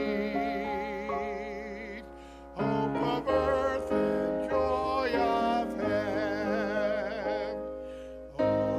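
A hymn sung by a voice with wide vibrato over sustained chords on a Roland electric keyboard, in phrases with a short break about two and a half seconds in and another near the end.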